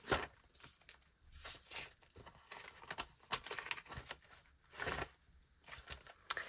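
Faint rustling of paper budget envelopes being handled, with a few light clicks and taps scattered through it.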